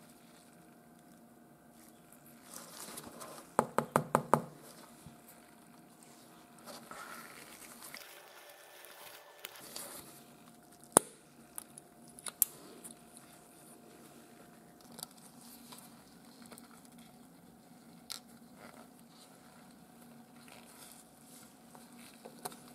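Quiet handling of a small wristwatch case: a quick run of about six clicks a few seconds in, then a case knife prying at the snap-on steel caseback, with sharp clicks around the middle as it snaps open.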